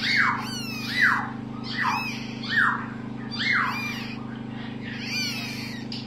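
Newly hatched parrot chick giving short, repeated begging squeaks while being hand-fed by syringe, each call falling sharply in pitch, about one every 0.7 seconds, stopping shortly before the end. A steady low hum runs underneath.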